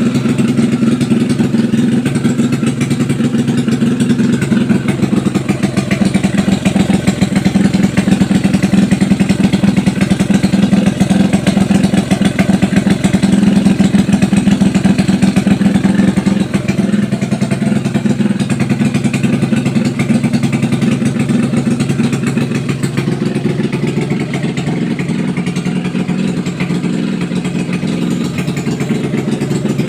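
Freshly overhauled motorcycle engine running steadily on its test run, a little louder in the middle and settling lower after about halfway.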